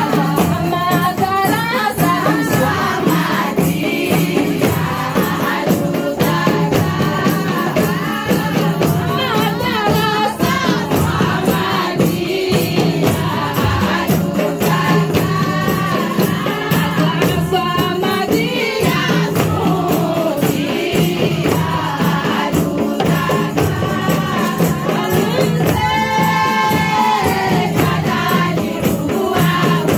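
A group of women and girls singing a devotional song together, with a drum beating a fast, steady rhythm underneath.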